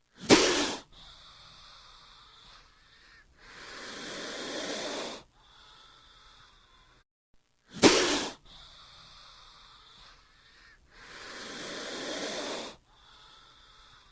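Cobra hissing: a short, loud hiss, then a longer hiss that swells over about two seconds and cuts off. The same pair of hisses comes again about eight seconds later.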